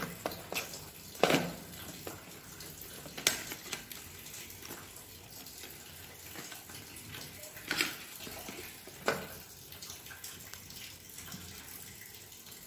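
Cardboard toothbrush boxes and bamboo toothbrushes being handled on a tabletop: a handful of sharp taps and knocks as a brush is slid out of its box and set down, over a steady background hiss.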